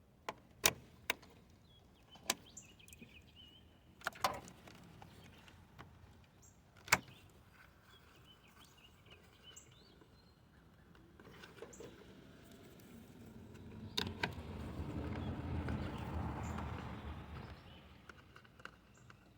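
Sharp plastic clicks and clacks of engine wiring harness connectors being unclipped and handled. From about 12 seconds a broad rushing noise swells and fades away again over several seconds.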